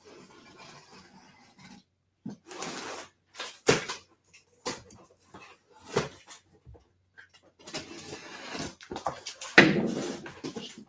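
Cardboard box being opened by hand: packing tape and flaps scraped and pulled, with rustling stretches broken by sharp knocks and taps, the loudest knock near the end.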